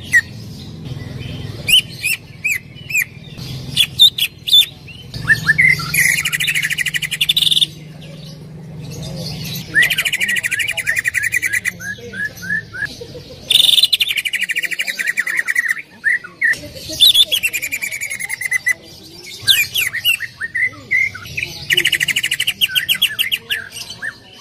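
Greater green leafbird (cucak ijo) singing: a loud song of rapid trilled phrases, each a second or two long, repeated about every three to four seconds, with short chirps and whistled notes between them.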